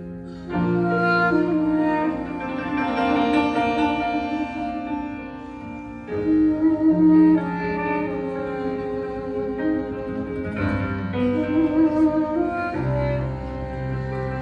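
Live instrumental passage on piano and upright double bass: long held notes, the chord changing several times, with no singing.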